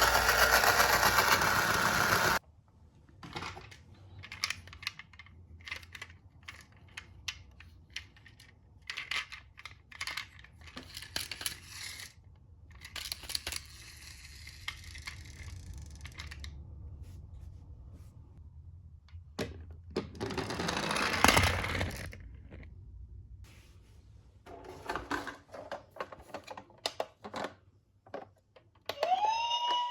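Light clicks and rattles of small die-cast toy cars being handled and rolled on a hard surface, scattered at irregular moments. A loud rushing noise cuts off suddenly about two seconds in, and a shorter loud rush comes about two-thirds of the way through. Near the end an electronic toy siren tone rises and then holds steady.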